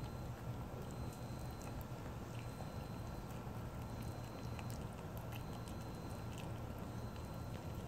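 Kitten eating wet cat food: small, irregular wet clicks and smacks of chewing, over a steady low hum.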